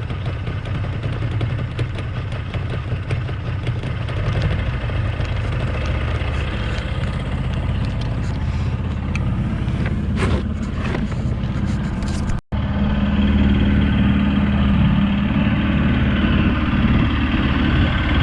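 Motorboat's engine running steadily under way. About twelve and a half seconds in, the sound drops out for an instant, then comes back louder with a stronger low hum.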